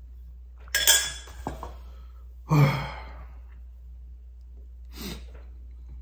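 A man slurps ramen broth from a stainless steel saucepan, followed by a light clink. About two and a half seconds in he lets out a satisfied voiced 'ahh' that falls in pitch, and a softer breath follows near the end.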